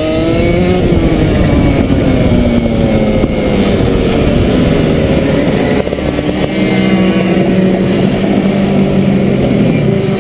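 Two-stroke 125cc Rotax kart engine heard from onboard, rising briefly, then dropping in pitch over several seconds as the kart slows, then running at a steady lower speed in the second half.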